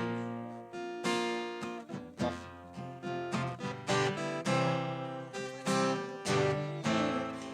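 Acoustic guitar strumming chords, each strum ringing out before the next, roughly once or twice a second.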